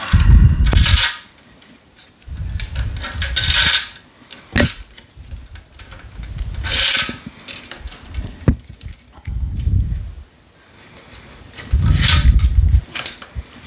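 Tennis string being pulled by hand across the woven main strings of a racket, the long end of a cross string rubbing through the string bed in about five long swishing pulls, with a couple of sharp ticks between them.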